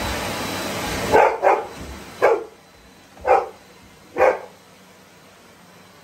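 A Rottweiler barks five times at a running vacuum cleaner: two quick barks, then three more about a second apart. The vacuum's steady noise goes quiet about two seconds in.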